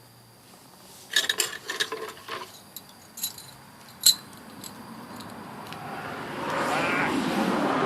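Light metal clinks and a sharp click as hot steel buckles are handled, then a rising hiss of bubbling from the hot bluing salt bath that swells over the last couple of seconds.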